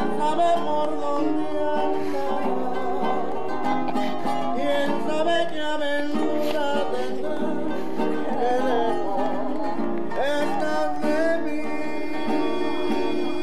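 A man singing while strumming a small round-backed acoustic guitar, with hand claps keeping time.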